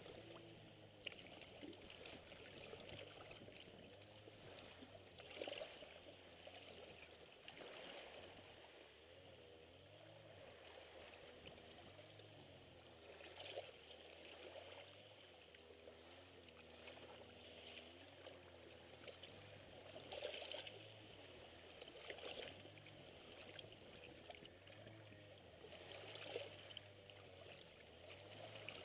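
Small sea waves lapping faintly against shoreline rocks, a soft wash that swells briefly every few seconds.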